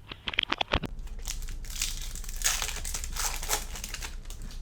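A sealed foil pack of 2022 Bowman baseball cards being torn open, its wrapper crinkling and crackling for about three seconds, after a few sharp clicks.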